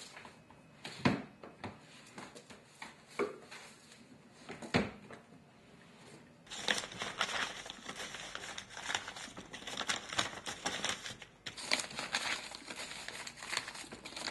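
A few separate soft knocks in the first half, then, from about six and a half seconds in, continuous rustling and crinkling as hands rummage through the contents of a wooden nightstand drawer.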